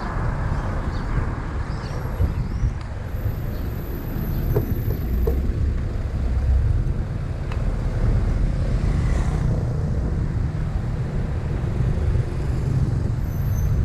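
Road noise from a moving vehicle: a steady low rumble with no clear engine note.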